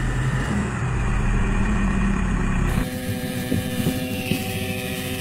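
Tractor engine running with a deep rumble. A little under three seconds in it cuts abruptly to a different, slightly quieter engine sound with a steady hum.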